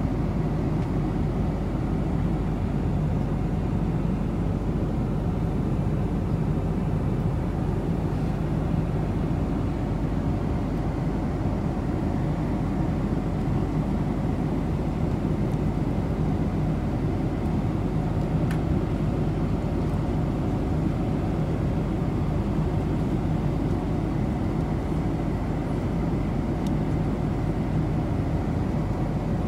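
Steady cabin noise inside a Boeing 747-400: an even low rumble with a rush of air that does not change.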